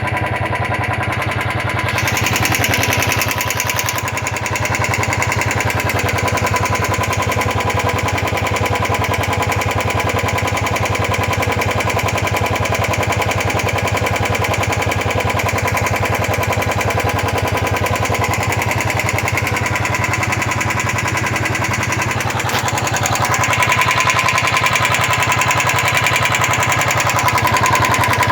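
Royal Enfield Thunderbird 350X's single-cylinder engine running steadily with a rapid tapping from the valve gear: tappet noise, which the owner says starts once the engine has warmed up. It gets a little louder in the last few seconds.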